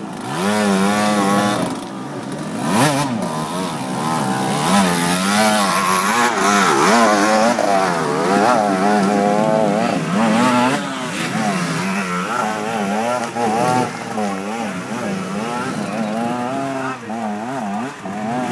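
Enduro motorcycle engines revving, their pitch rising and falling over and over as the throttle is worked, with several engine notes overlapping.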